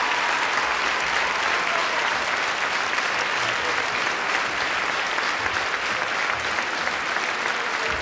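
Audience applauding steadily: dense clapping with no let-up.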